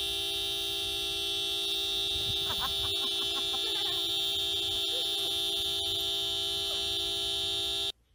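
Car horn held down in one long, steady blast, sounded by a husky resting its paws on the steering wheel; it cuts off suddenly near the end.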